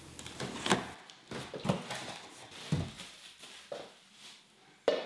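Scattered soft rustles and light knocks of packaging being handled, in short irregular bursts with quiet gaps.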